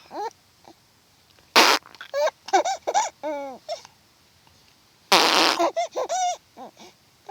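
A baby hiccuping twice, a short sharp hic about a second and a half in and a longer one about five seconds in, each followed by a run of short, high-pitched baby vocal sounds.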